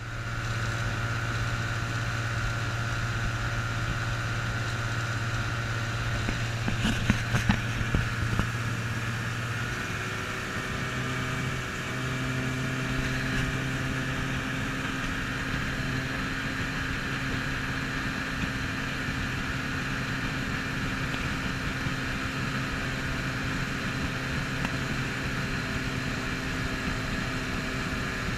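Antique outboard motor running steadily, its pitch dipping and then picking up again about ten to twelve seconds in. A cluster of sharp knocks about seven seconds in is the loudest moment.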